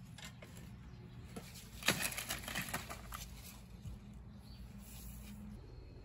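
Leafy persimmon branches and fruit rustling and knocking together as they are dropped onto the pile, with a burst of rustling and light knocks about two seconds in.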